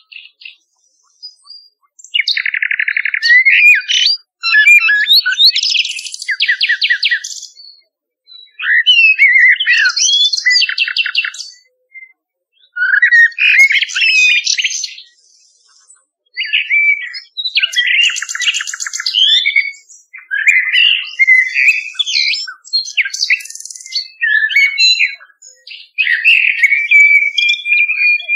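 Nightingale and blackbird song: varied phrases of rapid repeated trilled notes and clear whistles, each a few seconds long, with short pauses between them. A long repeated whistle comes near the end.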